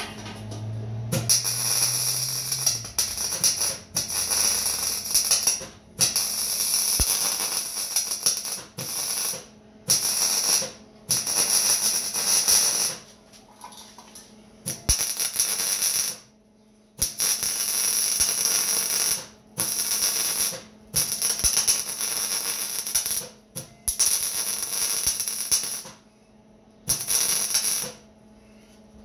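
MIG welder laying a series of short welds on steel framing: a crackling sizzle in about a dozen bursts of one to three seconds each, starting and stopping sharply with short pauses between, over a steady low hum.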